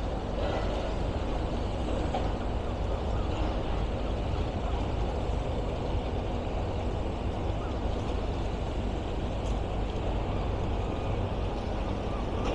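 Heavy demolition plant running steadily: a mobile crusher crushing rubble into hardcore, with excavators and a front loader working.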